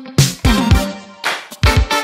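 Upbeat funk-style background music with drum hits and pitched instrument notes.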